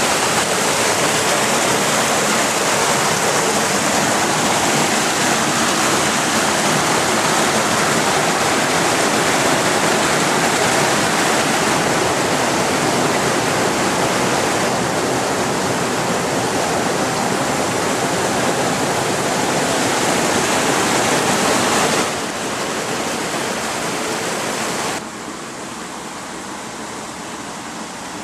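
Floodwater rushing in a steady, loud, even wash. The level drops suddenly twice near the end.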